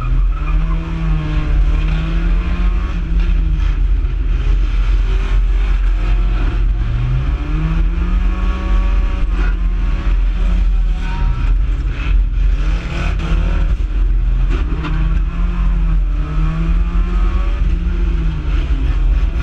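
Race car engine heard from inside the car at speed, revving up and easing off again and again over a steady low rumble.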